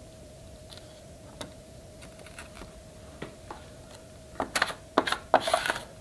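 Light clicks and clatter of thin circuit-board panels being picked up and handled on a workbench: a few scattered clicks at first, then a quick run of them in the last second and a half, over a faint steady whine.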